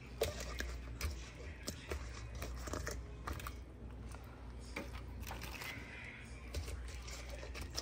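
Irregular light clicks and taps of kitchen tongs against a stainless steel bowl and a wire rack as sauced fried chicken tenders are lifted out and set down, over a low steady hum.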